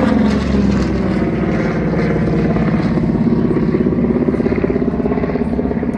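Grumman Avenger's Wright R-2600 fourteen-cylinder radial engine running on a flypast, its pitch falling as it passes, then a steady drone with a fast throb.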